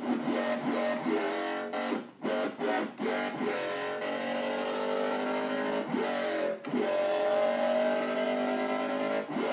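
Korg microKORG synthesizer playing a filthy, grating dubstep-style patch built from a sine and a saw with cross modulation, unison and a resonant low-pass filter. It plays choppy notes with short breaks, then a long held note that bends slowly upward before a brief break near the end.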